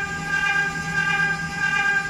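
High-speed spindle of a CNC milling machine running steadily as its end mill cuts a metal block under coolant spray. The sound is a sustained high-pitched whine with several steady tones, pulsing slightly in loudness.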